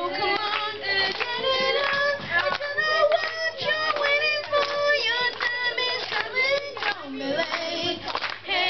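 A girl singing a pop song into a handheld microphone, holding long notes that waver, with some hand clapping from the people beside her.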